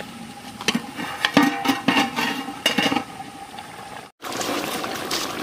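A metal lid clanking and scraping against a soot-blackened metal cooking pot, with irregular clinks that ring briefly. After a sudden break, a steady hiss from the steaming pot.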